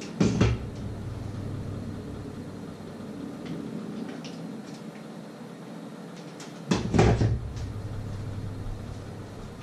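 Two short bursts of knocking and clatter, about six and a half seconds apart, the first just after the start, over a steady low hum.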